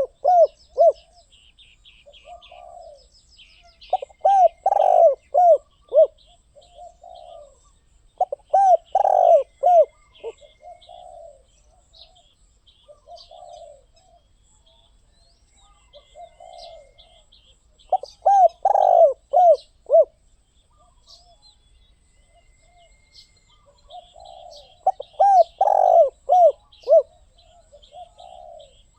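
Spotted dove cooing: five loud phrases of several quick coos each, with softer coos between them. Small birds chirp faintly in the background.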